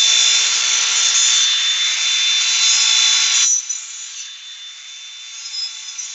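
Cordless 4.5-inch angle grinder with a 60-grit flap disc grinding the cutting edge of a Honda HRR216 lawn mower blade to sharpen it: a steady high whine over a loud grinding hiss. About three and a half seconds in, the disc comes off the blade and the grinder spins freely, quieter.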